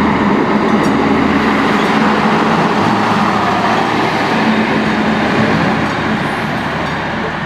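HŽPP 7122-series diesel railcar passing close by, its diesel engine running under the noise of the wheels on the rails. The sound is loud and eases slowly near the end as the railcar moves away.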